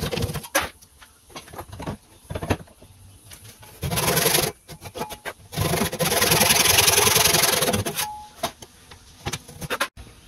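Hand saw cutting a tenon in a hardwood bed post: a few light knocks, a short saw stroke about four seconds in, then a long stretch of sawing lasting about two seconds.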